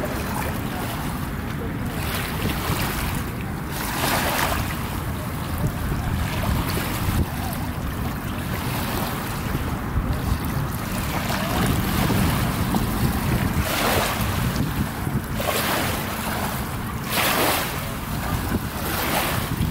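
Small waves lapping and washing over rocks and gravel at a shallow, calm shoreline, swelling every few seconds, with a steady low rumble of wind buffeting the microphone.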